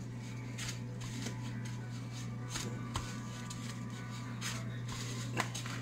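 Soft, intermittent rustling and scraping of dry breadcrumbs as a raw chicken breast is pressed and turned in a plastic container of breading, over a steady low hum.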